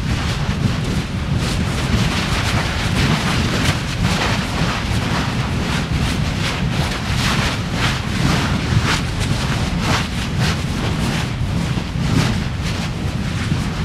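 Erupting volcanic fissure vent: a steady low rumble with irregular sharp crackles as lava spatters, mixed with wind buffeting the microphone.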